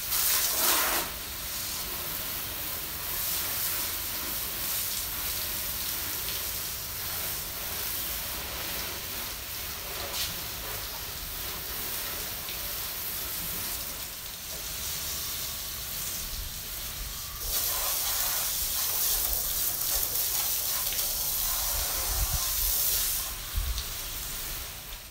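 Garden hose spray nozzle jetting water against a boat hull, a steady hiss of spray and splashing as the cleaner is rinsed off. It gets louder for several seconds toward the end.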